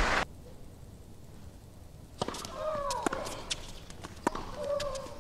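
Tennis rally: racket strikes and ball bounces as sharp knocks, starting about two seconds in after a hushed stretch, with a player's drawn-out shriek on several of the strokes.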